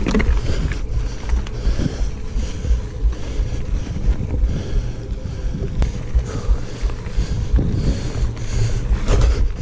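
Wind buffeting an action camera's microphone over the rumble of a mountain bike rolling along a dirt singletrack, a steady low, fluttering roar.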